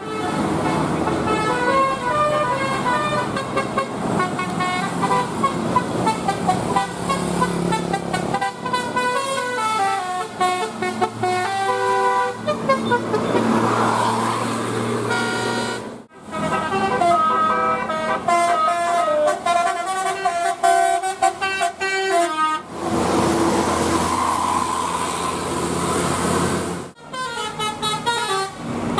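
Indonesian bus 'telolet' musical horns playing quick multi-note tunes, the notes stepping up and down in sequence. The sound cuts off abruptly a few times, and there are stretches of even rushing noise between the tunes.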